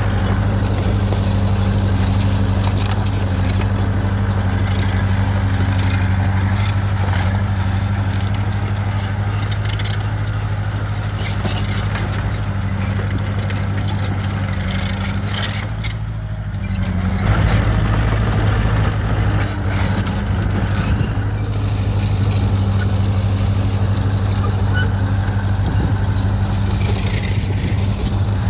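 Heavy diesel engine of earthmoving machinery running steadily, with metallic clanking and rattling. The engine eases off briefly a little past halfway, then comes back up.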